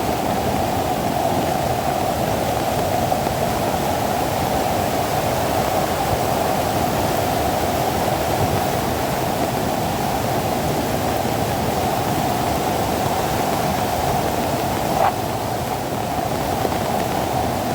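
Floodwater rushing past in a steady, unbroken torrent, with one small click near the end.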